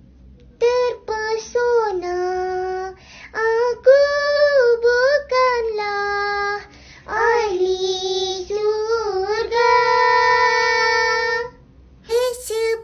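A high, child-like voice singing a melody in phrases with wavering, gliding notes, ending on a long held note about two-thirds of the way through.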